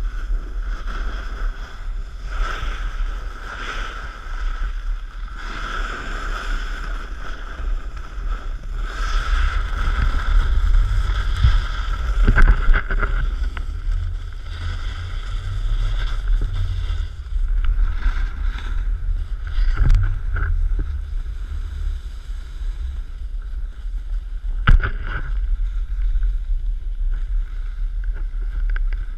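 Wind buffeting an action camera's microphone on a selfie pole during a snowboard run downhill, over the hiss of the board sliding on snow. The noise swells in the middle, and a few sharp knocks sound, the sharpest about 25 seconds in.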